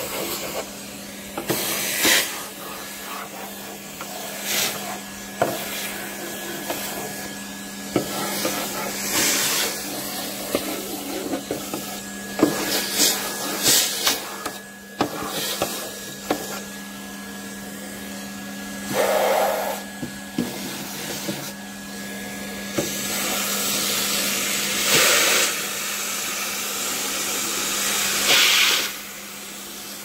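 Numatic Hetty canister vacuum cleaner running with a steady hum, its metal wand nozzle drawn over wooden shelves sucking up sawdust and grit. Several short hissing rushes come as the nozzle meets the surface and takes in debris, then a longer rush near the end that drops away about a second and a half before the end.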